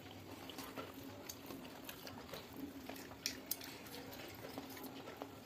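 Quiet eating sounds: scattered small clicks and smacks from fingers mixing rice on a steel plate and from chewing, over a faint steady hum.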